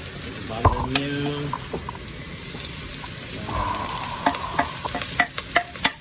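Onion and garlic sizzling as they fry in hot oil in a pot, with a spoon stirring and knocking against the pot several times in the last two seconds.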